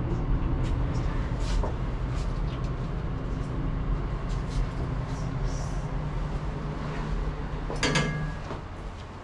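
Elevator car travelling with a steady low hum and rumble. About eight seconds in, a sharp clack with a brief high tone comes as the car arrives and the doors open, and the hum falls away.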